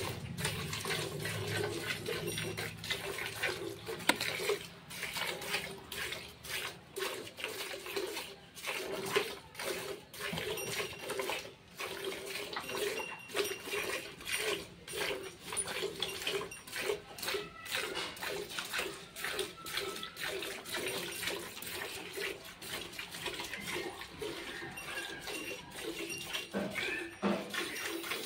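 Cow being milked by hand into a steel bucket: jets of milk squirting from the teats into the milk already in the bucket, in a steady rhythm of squirts.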